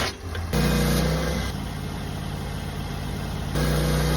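Sawmill engine running steadily while milling a walnut log. It grows louder and stronger in tone twice for about a second, once about half a second in and again near the end.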